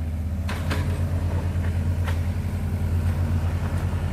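Engine of a small compactor running steadily, a low hum with a slight regular pulse. A few light clicks sound over it, one about half a second in and one about two seconds in.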